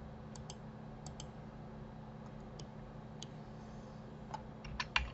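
Scattered short clicks of a computer mouse and keyboard, some in quick pairs and a louder cluster near the end, over a faint steady low hum.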